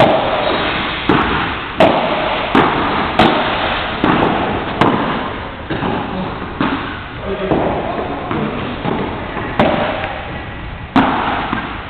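Padel rally: the ball struck back and forth by solid paddle rackets, a run of sharp hits roughly once a second, each leaving a short echo.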